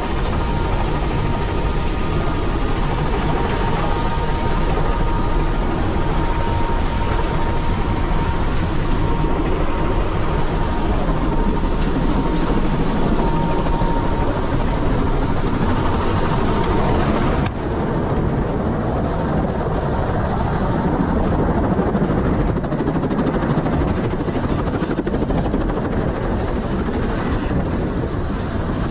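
Helicopter in flight: a steady, loud drone of engine and rotor noise. A faint high whine fades out about halfway through, and the hiss drops off abruptly about two-thirds of the way in.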